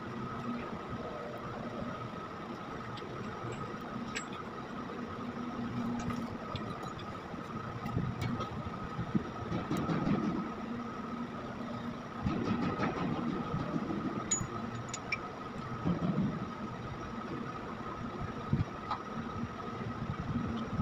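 An engine running steadily, with a thin high whine throughout and louder rumbling swells about ten, twelve to thirteen, and sixteen seconds in.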